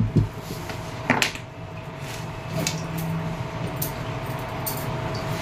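Cotton dress fabric being lifted, gathered and rustled by hand on a cutting table, with several short sharp clicks over a steady low hum.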